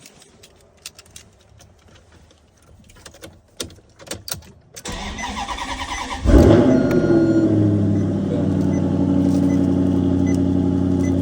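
Maserati engine cranked by the starter for about a second and a half, then catching with a loud flare of revs and settling into a steady idle. A few light clicks come before the cranking.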